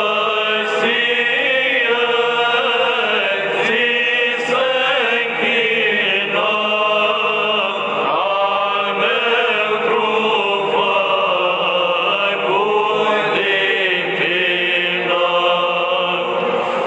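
Romanian Orthodox hymn to the Holy Cross in Byzantine-style chant, voices singing the verse "Astăzi ție ți se-nchină, / Al meu trup făcut din tină" as a winding melody over a steady held low note.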